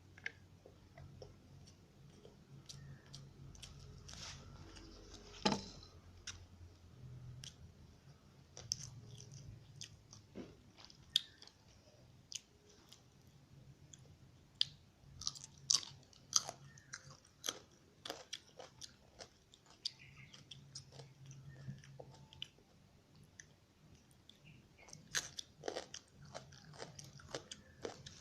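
A person chewing and biting chicken rice close to the microphone: a continual run of small, sharp mouth clicks and crunches, with one louder crunch about five and a half seconds in.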